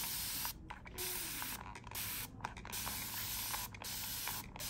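Trigger spray bottle spraying water onto a wig's hair in repeated short bursts of hiss, about one a second.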